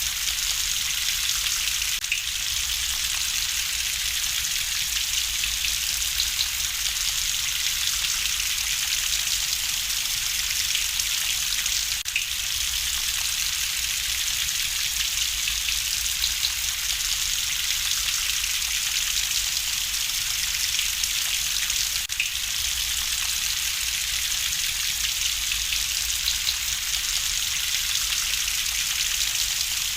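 Steady rain hiss with a few faint crackles from a fireplace mixed in. There is a brief dip in the sound about every ten seconds.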